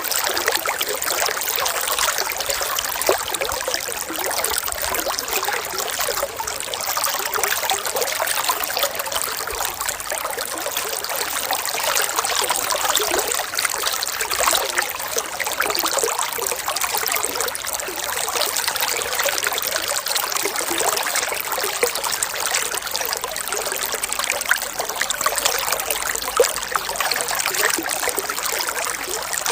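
Running water trickling steadily, an even rushing hiss that keeps the same level throughout.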